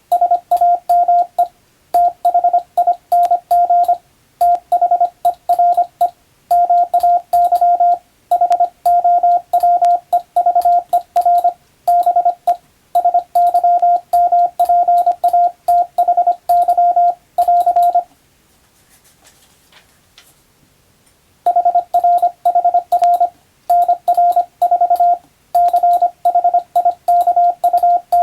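Morse code (CW) as a single steady beep tone, keyed on and off in rapid dots and dashes grouped into words. There is a pause of about three seconds some two-thirds of the way through.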